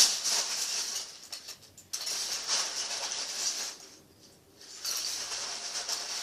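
Loose plastic K'Nex pieces clattering and rattling as someone rummages through them by hand, in three spells with short pauses between.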